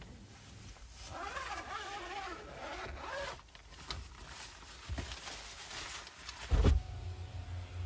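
A zipper pulled in one long rasping run about a second in, among the rustle and handling of a fabric window mosquito-net screen, then a heavy thump near the end.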